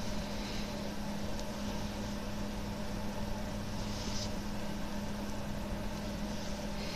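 Steady machine hum with a constant low tone, with a few faint brief rustles over it, the clearest about four seconds in.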